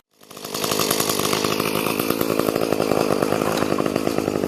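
Two-stroke chainsaw engine running steadily. It comes in about half a second in and holds an even pitch with no revving.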